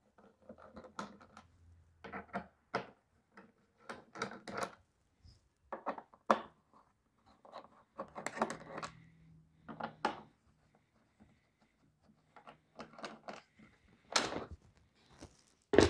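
A T-handle hex wrench turning out the screws of a DeWalt DW735 thickness planer's plastic top cover, heard as scattered light clicks and scrapes of metal on plastic. There are louder knocks near the end as the cover is handled.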